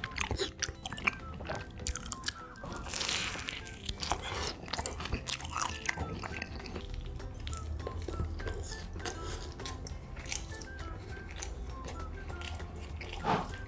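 Light background music over close-miked eating: crunchy bites and chewing of a potato-coated Korean corn dog, with a slurp of sauce about three seconds in.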